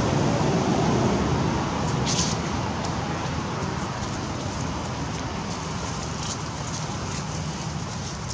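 Steady rumbling background noise, somewhat louder for about the first second and a half, with a brief high hiss or rustle about two seconds in and a few faint ticks later.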